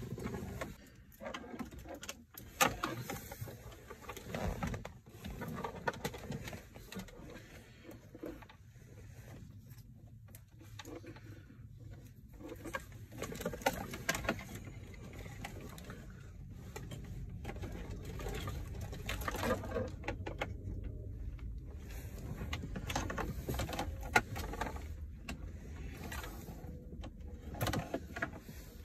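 Scattered clicks, knocks and rustling of hands working in a car dashboard's radio opening, pulling out the head unit and its wiring harness. A low steady rumble comes in about halfway through.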